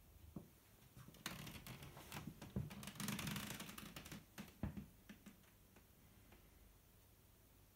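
Door latch and handle clicking and knocking as a door is opened and walked through: a run of sharp clicks starting about a second in, busiest around three seconds, dying away to quiet room tone after about five seconds.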